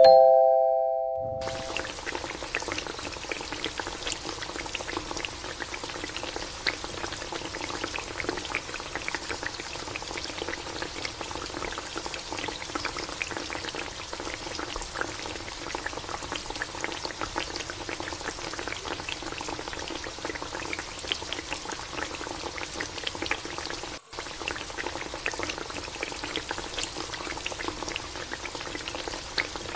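A short electronic chime opens, fading out within about a second and a half. After it comes glutinous rice in coconut milk simmering in a pan, a steady bubbling with many small pops, while a metal spoon stirs it now and then.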